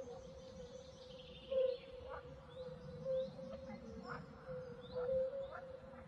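Faint natural ambience: short chirping calls about once a second over a steady faint hum.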